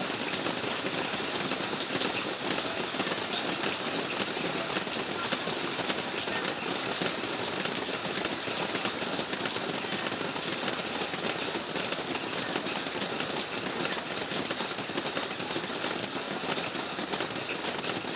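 Rain falling steadily: a dense, even hiss dotted with many small drop clicks.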